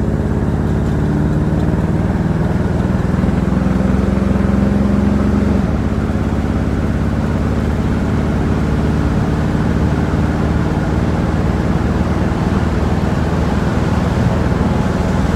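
The engine of a 1963 Chevrolet Impala SS running steadily under load as the car accelerates at highway speed, heard from inside the cabin along with road noise. About six seconds in, the engine note drops to a lower pitch and then holds steady.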